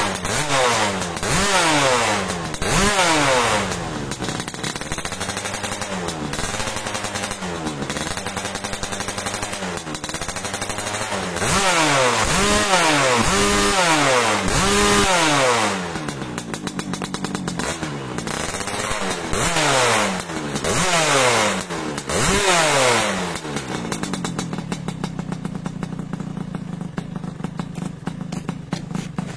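Modified Yamaha V80 two-stroke engine with a Kawasaki Ninja cylinder block and ABRT expansion exhaust, revving hard in repeated blips that rise and fall in pitch. It settles into a steady idle a little over 20 seconds in.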